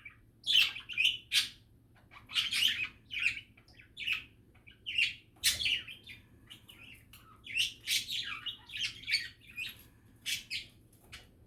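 Pet budgies (budgerigars) chattering: bursts of short chirps, warbles and squeaks in clusters, with brief pauses between.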